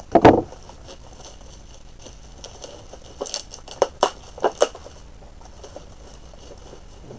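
Plastic bubble wrap around a boxed vinyl figure being handled and pulled off. There is a loud rustle just after the start, then a handful of short, sharp crackles in the middle.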